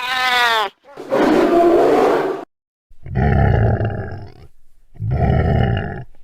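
A string of four separate creature roars and growls: a short, high call that bends in pitch, a rough growl, then two deep rumbling roars with a falling whistle-like tone above each.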